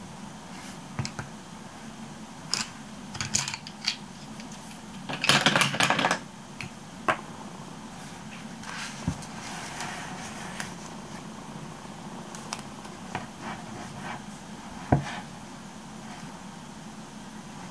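Pencils and stationery handled on a desk: scattered light clicks and taps, with a longer clatter about five to six seconds in as the coloured pencils are gathered up, and a single sharper knock near fifteen seconds.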